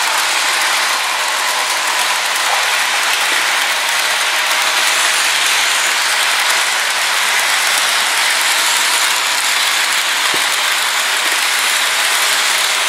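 HO scale model freight train rolling along the track: a steady clattering rush of the cars' small wheels on the rails.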